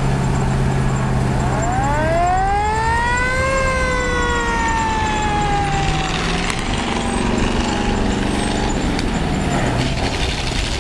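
Fire engine siren winding up in a rise of about a second and a half, then slowly falling away, over the steady running of the truck's engine.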